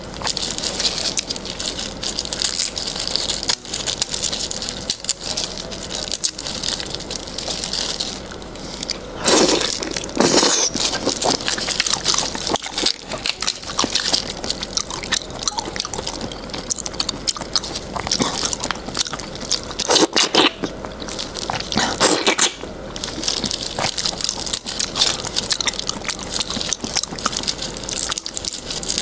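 Close-miked crackling of raw prawn shell and wet squishing of the flesh as gloved hands peel it apart, with the plastic gloves rustling. Sharper cracks come at about nine and ten seconds in, and again at about twenty seconds and twenty-two seconds in.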